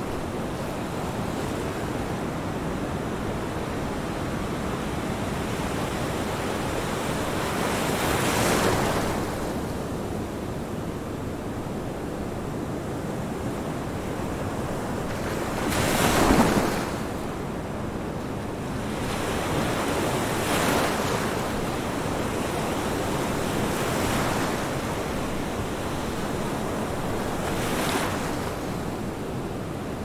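Ocean waves: a steady washing hiss that swells five times as waves break, the biggest about halfway through.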